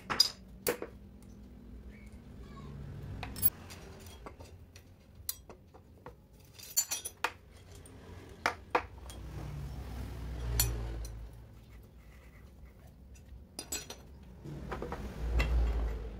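Scattered metal clicks and clinks of a steel hex key and loose bolts against an aluminium motorcycle crankcase as its bolts are taken out. A low rumble swells twice in the background, near the middle and near the end.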